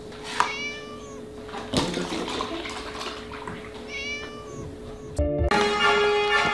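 A kitten meows twice, about half a second in and again about four seconds in, while milk pours and splashes into a plastic tub. Music with a steady held note runs underneath and gets louder about five seconds in.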